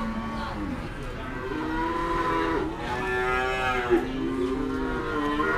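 Several cattle mooing, with long drawn-out calls that overlap and follow one another.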